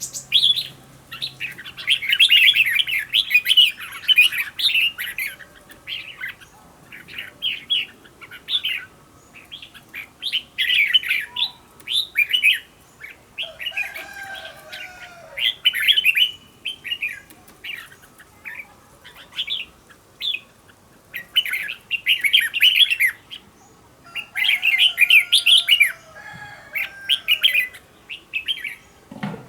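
Red-whiskered bulbul singing: short, quick bursts of bright chirping, warbling phrases repeated every second or few seconds with brief pauses between.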